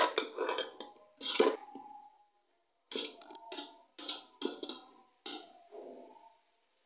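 A steel slotted spoon scrapes and knocks against the inside of an aluminium cooking pot, stirring shredded cabbage and peas. The strokes come irregularly, about nine of them with a short pause about two seconds in, and some leave a faint metallic ring.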